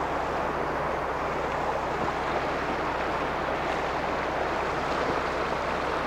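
Shallow mountain stream rushing over a bed of stones, a steady, unbroken water noise.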